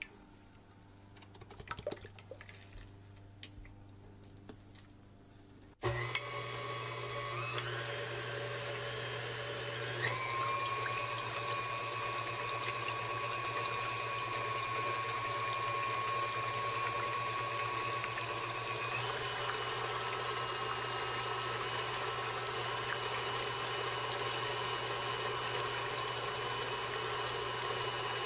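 Heavy cream poured faintly into a stainless steel mixing bowl. About six seconds in, a KitchenAid Classic Plus stand mixer's motor starts, driving the wire whip through the cream with a steady whine over a low hum. The whine steps up in pitch three times as the speed lever is raised toward high speed. The mixer's volume is turned down in the recording.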